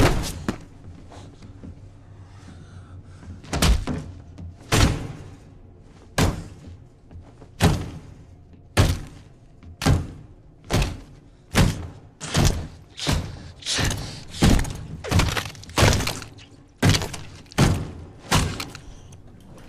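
A boot stamping down again and again on a person's head on an elevator floor, a film's fight sound effect: about twenty heavy thuds that start a few seconds in and come faster, from about one a second to nearly two a second.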